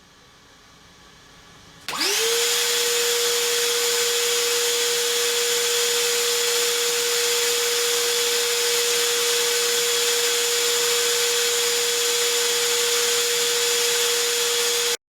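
Ridgid cordless NXT wet/dry vacuum switched on about two seconds in: the motor spins up quickly and then runs at a steady high whine over a rush of air, until the sound cuts off abruptly near the end.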